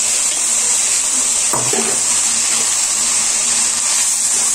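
Sliced onions, capsicum and chopped tomatoes sizzling in hot oil in a frying pan while a wooden spatula stirs them: a steady high hiss.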